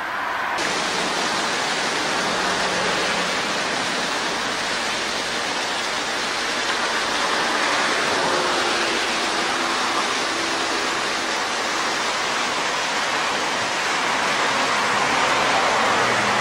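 A steady, loud rushing hiss with no clear rhythm or pitch. It starts suddenly about half a second in and runs on without change.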